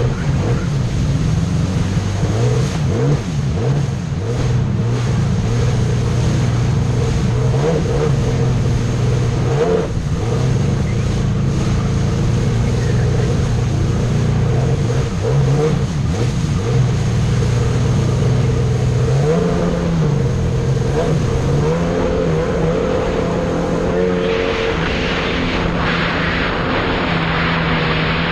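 Jet ski engine running under way, its pitch shifting with the throttle, dropping and climbing again past the middle, over rushing water against the hull. The water rush grows louder in the last few seconds.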